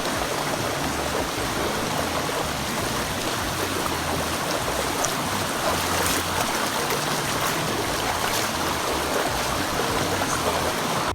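A river rushing steadily, loud and unbroken.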